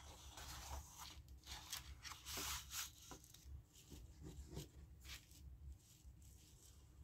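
Sheets of paper rustling and sliding against each other as they are laid on a table and straightened, in faint irregular scrapes that thin out about five seconds in.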